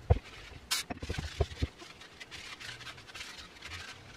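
Paper towel wiping and handling around a reciprocating saw's blade-holder area: a handful of light knocks in the first two seconds, a brief hiss a little under a second in, then faint rubbing.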